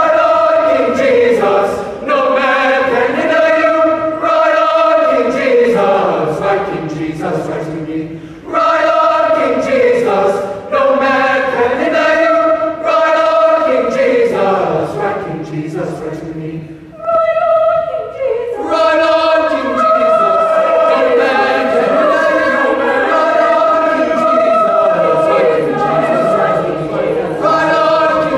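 Mixed high-school choir of male and female voices singing a cappella, held chords in phrases with short breaks between them. About seventeen seconds in only the higher voices sound for a moment before the full choir comes back in.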